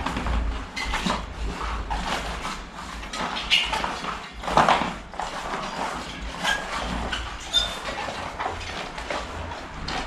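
Bicycle tyre being worked by hand on its wheel rim to repair a flat: rubber rubbing and scraping against the rim, with irregular small clicks and knocks.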